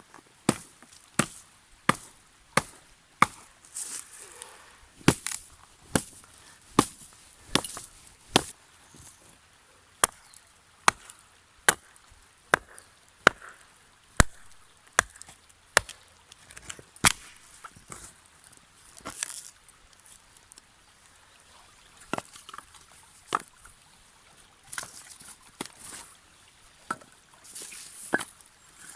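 Wood being chopped with a blade: a steady series of sharp chopping strikes, a little more than one a second, thinning out to fewer, irregular strikes in the last third.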